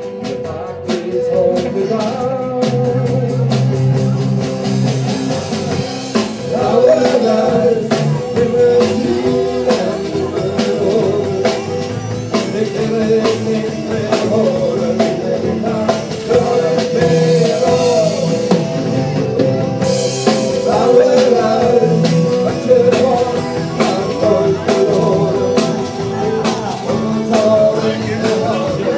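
Live rock band playing in the room: electric guitars over a drum kit, with a steady beat.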